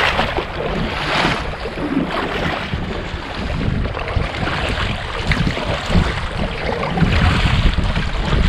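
Kayak paddle strokes splashing through river water, with wind buffeting the microphone.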